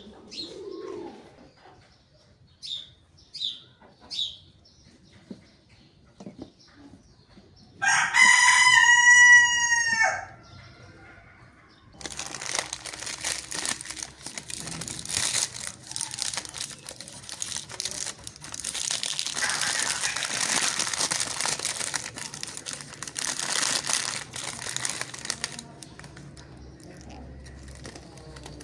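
A rooster crows once, about two seconds long and the loudest sound here, after a few short high chirps. From about twelve seconds in, the plastic packaging of an IV drip set crinkles and rustles for about fourteen seconds as it is torn open and handled.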